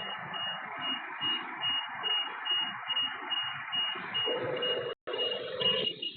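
High-pitched electronic alarm buzzer beeping steadily at about two pulses a second, over a steady hiss of background noise; the sound cuts out briefly about five seconds in.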